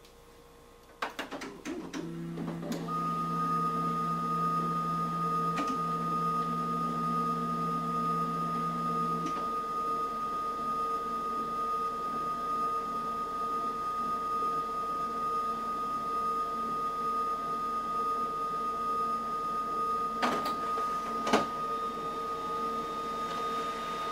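Canon imageCLASS D320 photocopier running after a few clicks: a steady mechanical hum with a thin high whine, the lower hum stopping with a click about nine seconds in. Two sharper clicks come near the end while the whine carries on.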